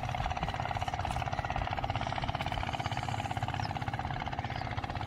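An engine running steadily: a constant drone with a fast, even pulse and a held hum.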